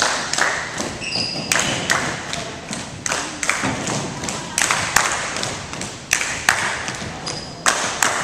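Tinikling poles tapped on a wooden gym floor and knocked together in a steady beat, about two sharp strikes a second.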